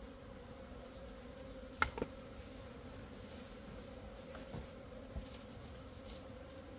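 Honeybees buzzing steadily around their opened nest as it is smoked. A few short knocks, the loudest two close together about two seconds in.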